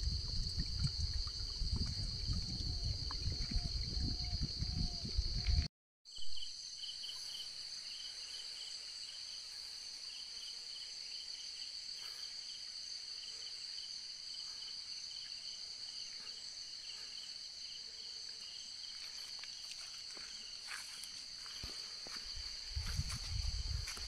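Insects chirring steadily in a high, continuous drone with a faster pulsing chirp beneath it. A low rumble on the microphone fills the first few seconds, and the sound drops out briefly about six seconds in.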